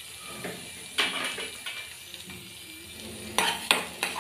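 Chopped red onions sizzling in hot butter in a steel kadai while a spatula stirs them. The spatula scrapes and knocks against the metal pan about a second in, then several times in quick succession near the end.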